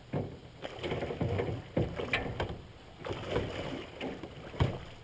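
Hooked muskie splashing and thrashing in the water at the side of an aluminum boat as it is landed, with several sharp knocks, the loudest near the end.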